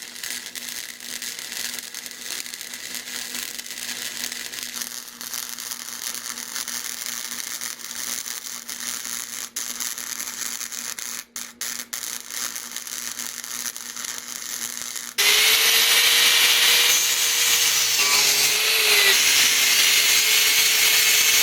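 A quieter steady mechanical noise with a faint hum, then about two-thirds of the way through an abrupt change to a loud, high-speed electric power tool running, a steady whine over hiss. A few seconds after the change the whine briefly drops in pitch, as the tool is loaded against the metal work.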